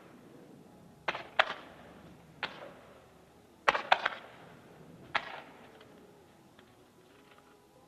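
Fireworks shells bursting in the air: about six sharp bangs in irregular pairs and singles, each with a short echoing tail. After them come a few faint crackles, and it quietens near the end.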